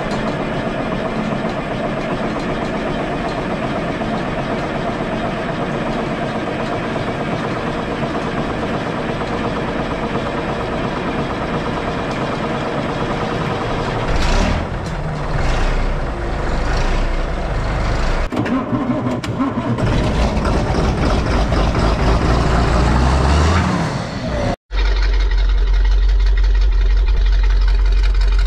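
GMC General tanker truck's diesel engine on a cold start: steady cranking for about fourteen seconds before it catches, then running and revving unevenly. After a sudden cut, a smaller vehicle's exhaust idles steadily with a low rumble.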